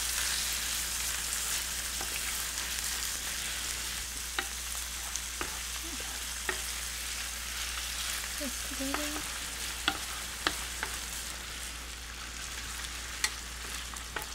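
Chopped bacon and sliced garlic sizzling in an electric skillet, a steady hiss, while a wooden spoon stirs them, with a few sharp clicks along the way.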